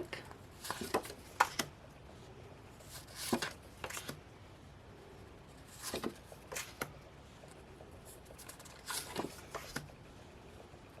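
Small postcard calendar cards being handled and flipped through: scattered brief rustles and light taps of card against card, in four or five short clusters.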